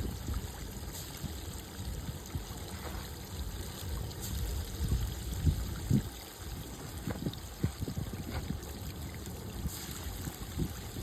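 Water trickling and splashing, over an uneven low rumble.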